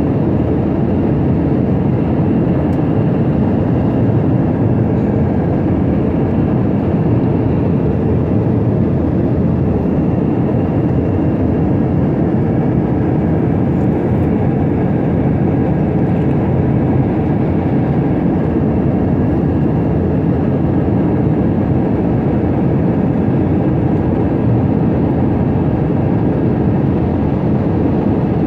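Steady cabin noise inside an Airbus A321 airliner in flight: the rush of air and the engines' drone as one even noise, with a faint steady whine above it.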